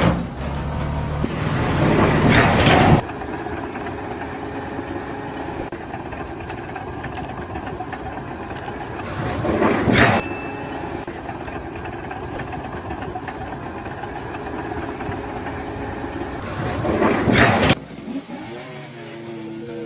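A vehicle or machine engine running steadily, with three louder noisy surges: one about two seconds in, one about halfway through, and one near the end.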